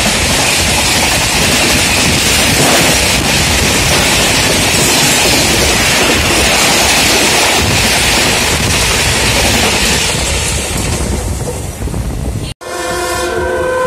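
Loud rush of an express train's coaches passing close alongside on the next track, heard from the doorway of a moving train with wind on the microphone; the rush thins out after about ten seconds as the last coach goes by. Near the end, after a brief break, a train horn sounds with several steady tones together.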